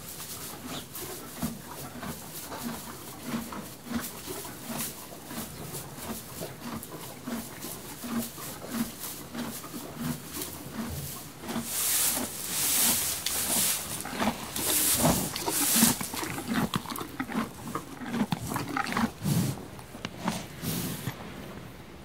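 A horse chewing hay in a stable: a steady munching rhythm of about two chews a second, with crackly crunching of the dry hay and a few louder noisy bursts about halfway through.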